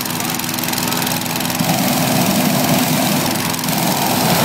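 Gas-engine inflator fan running steadily as it blows air into a hot air balloon envelope; about a second and a half in, the balloon's propane burner starts firing, adding a loud rushing noise over the engine.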